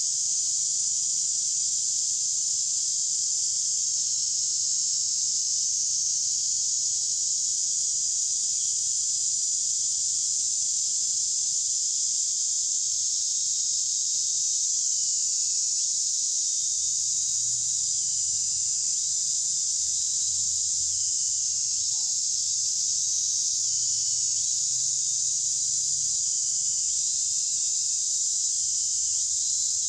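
Steady, high-pitched drone of an insect chorus.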